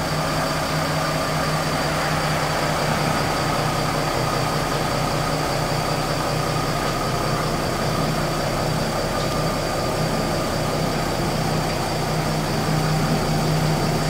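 Jeep Grand Cherokee's engine idling steadily, left running to charge the battery.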